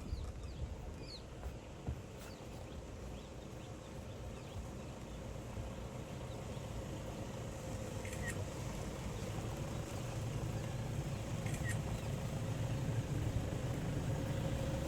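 Low, steady rumble of a vehicle engine running, with a faint steady hum, growing slowly louder. A few faint short chirps sound over it.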